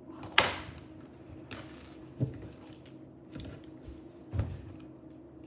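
Plastic Lego pieces being handled and pressed together: a few scattered sharp clicks and knocks, the loudest about half a second in.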